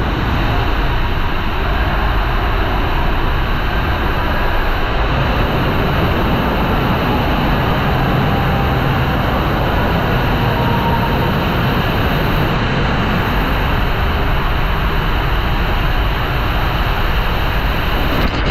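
Steady loud rushing of water and air as an inflatable tube slides down the inside of an enclosed water-slide tube.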